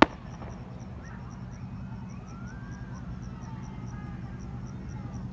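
A single sharp firework bang at the very start. Then a steady low rumble with faint, slowly rising and falling tones in the distance.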